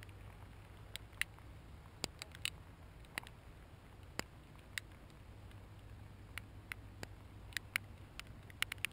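Raindrops striking the camera: irregular sharp ticks, a few seconds apart at first and coming more often near the end, over a faint low rumble.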